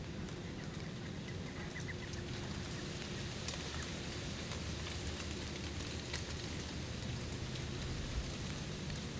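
Soft crackling and rustling in dry leaves over a steady low rumble, with a few faint high chirps about two seconds in.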